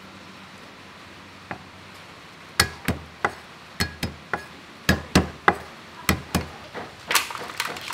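Cleaver chopping garlic cloves on a wooden chopping board: a dozen or so sharp knocks at an uneven pace, starting about two and a half seconds in.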